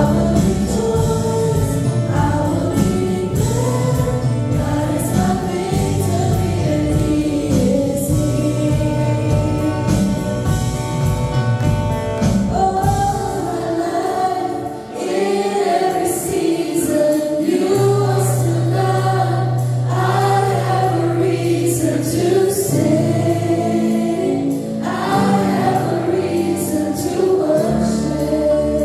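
A worship team of female singers singing a Christian praise song together through microphones, with live band accompaniment. The drums and bass drop out about halfway, and held bass notes come back a few seconds later.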